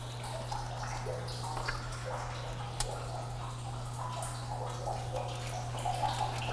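A steady low hum under faint, scattered clicks and rustles of gloved hands handling and bundling wires with a zip tie inside a plastic riser.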